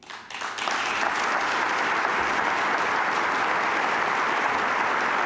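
Audience applauding: the clapping swells up over about the first second, then holds steady.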